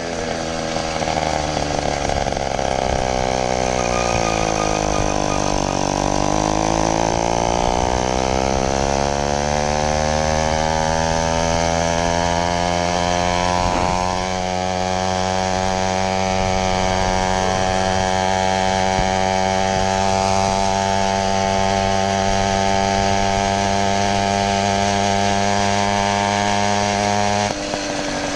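80cc two-stroke motorized-bicycle engine running while riding, with a high buzz. Its pitch sags and climbs back again about a quarter of the way in, then holds steady, and drops along with the level about a second before the end.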